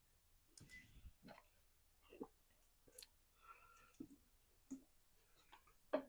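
Near silence with a scatter of faint, short clicks and taps, about one or two a second, the loudest near the end.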